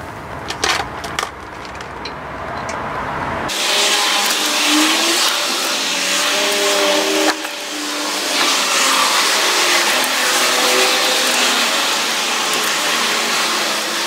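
A few light metallic clicks of wheel nuts being handled as they are threaded on by hand. About three and a half seconds in, a loud, steady motor-vehicle noise with a wavering pitch starts suddenly and covers the rest.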